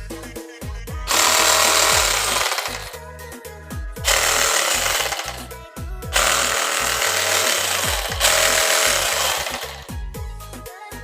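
Cordless jigsaw, converted to a 3.0 Ah lithium battery, running in four bursts of about two seconds each, over background music with a steady beat.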